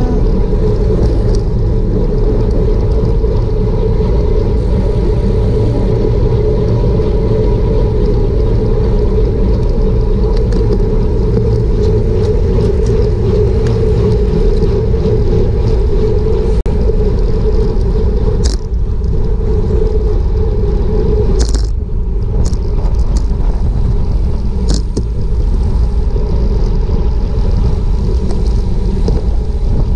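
Wind rushing over a GoPro action camera's microphone as a road bike races at about 20–26 mph, a loud steady rumble, with a few short sharp clicks in the second half.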